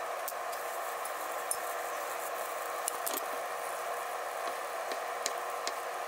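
Steady sizzling hiss from strips of fried tofu frying in a pan over a gas flame. Over it come a few light clicks and taps as chopsticks stir snap peas in a small bowl and a knife slices a rolled omelette on a wooden board.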